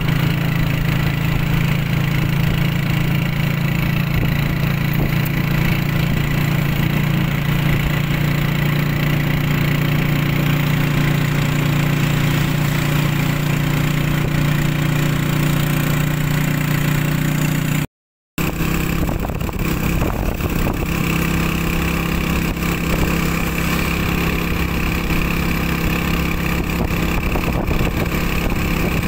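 Engine of a road vehicle running steadily as it travels along, a constant low hum with road noise over it; the sound cuts out for a moment about 18 seconds in.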